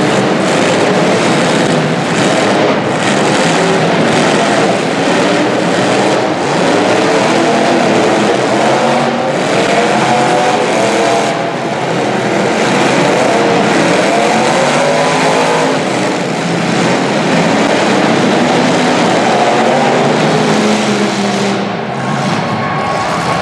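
Demolition derby cars' engines revving and running hard, with a few sharp knocks of impacts.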